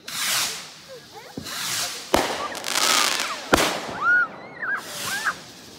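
Consumer fireworks going off: several swelling hisses and crackles, with two sharp bangs about two and three and a half seconds in.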